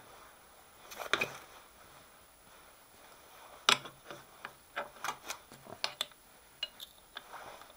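Scattered light metallic clicks and taps as a milling vise is slackened off a load cell and tools are handled: one click about a second in, a sharper one just before halfway, then a run of small ticks.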